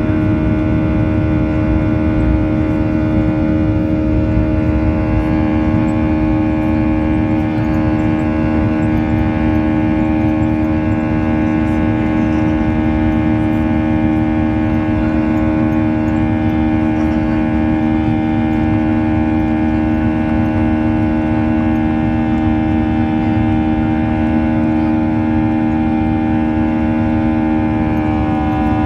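A Boeing 737-800's CFM56 turbofan engine at takeoff thrust, heard from inside the cabin right beside it: a loud, steady drone with strong humming tones over a rushing rumble. About a second before the end the tones shift as the engines throttle back for a noise restriction.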